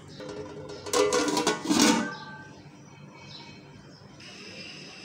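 Short stretch of background guitar music: a few plucked strums in the first two seconds, then it dies down low. Near the end a faint steady high tone comes in.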